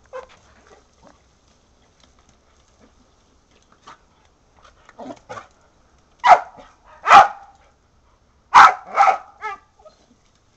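Kelpie-mix dog barking at a lawn sprinkler: two pairs of short, sharp barks, the first pair about six seconds in and the second about two seconds later, after a few faint yips.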